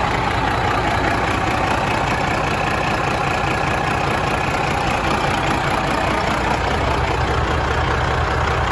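12.7-litre Detroit Series 60 inline-six diesel, freshly overhauled, idling steadily.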